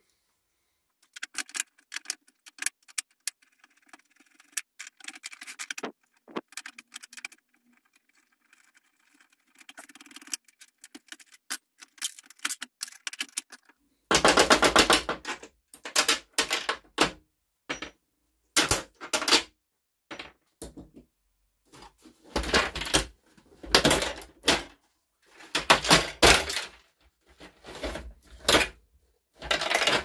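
Screwdriver, pliers and the dehumidifier's plastic housing clicking, scraping and knocking as the unit is unscrewed and its panels pried apart. The clatter gets louder and heavier from about halfway through.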